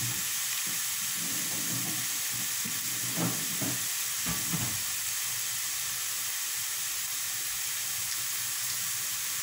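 Spinach sizzling steadily in a frying pan, with a few soft knocks about three to four and a half seconds in.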